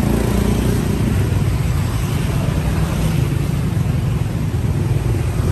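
Steady low rumble of a vehicle engine running, with no clear knocks or breaks.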